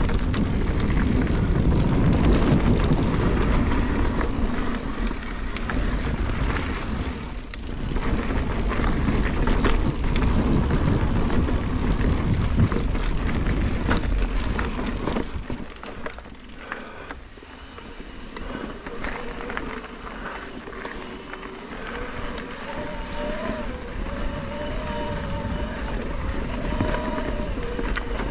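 Mountain bike riding down a dirt trail: wind rushing over the camera microphone and tyres rolling and rattling over the ground, easing off to a quieter ride a little past halfway.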